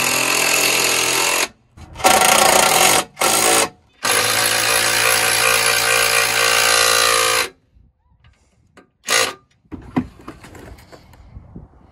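Cordless power tool running in four bursts, driving the bolts that mount a power running board to the truck's underside; the last and longest burst lasts about three and a half seconds. Then it goes much quieter, with one short burst about nine seconds in.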